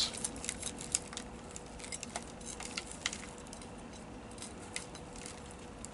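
A metal root hook scratching and raking through the dry root ball of a Catlin elm, with irregular small clicks and crumbs of soil pattering down. The clicks are dense at first and thin out after about three seconds.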